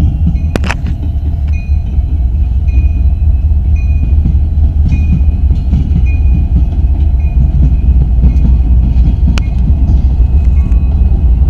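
Union Pacific and BNSF diesel locomotives at the head of a freight train passing close by, their engines and wheels making a loud, steady low rumble. A sharp click about half a second in and another near the end.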